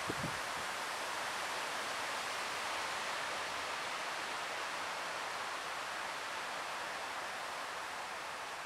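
Steady rushing of a river running high and swollen after a typhoon: an even noise of churning water, easing slightly near the end.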